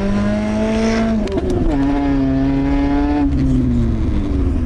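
Lada Priora's four-cylinder engine running loud through an exhaust with the muffler removed. Its pitch shifts abruptly about a second in, then holds fairly steady.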